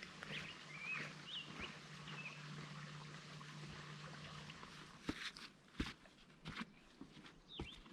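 Faint bird chirps, several short up-and-down calls in the first two or three seconds, then a handful of separate footsteps over a steady low hum.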